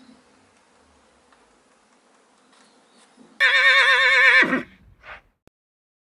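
A horse whinnying once, starting about three and a half seconds in. It is a loud, quavering call a little over a second long that drops in pitch as it ends. A brief, fainter call follows.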